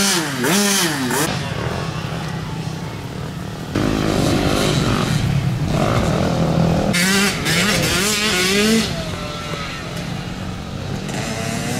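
Dirt bike engines revving, the pitch swinging up and down with the throttle, with a few abrupt changes in level and tone.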